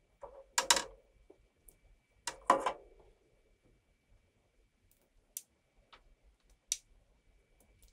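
Hands handling small electronic parts at a soldering bench: two brief louder rustling clicks within the first three seconds, then a few faint scattered ticks, over a thin steady high whine.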